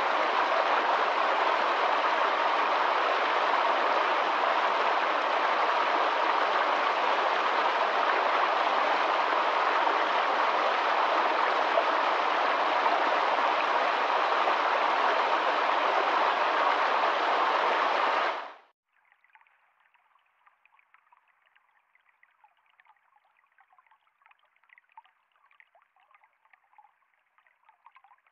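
Steady, dense rush of a waterfall that cuts off suddenly about two-thirds of the way through, leaving only a faint crackling hiss.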